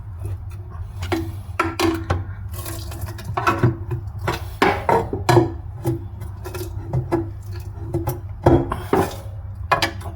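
Irregular metal clinks and knocks of hand tools working on the steel oil sump and its 10 mm bolts on a Suzuki J20A engine, over a low steady hum.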